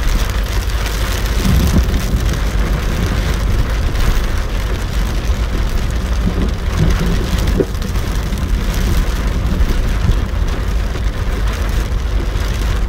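Torrential rain on the roof of a car, heard from inside the cabin, with a deep rumble of thunder running under it. The windscreen wipers and the engine run underneath.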